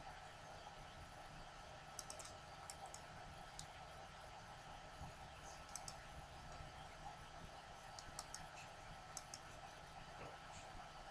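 Faint computer mouse button clicks, a dozen or so scattered single and double clicks, over a low steady background hum.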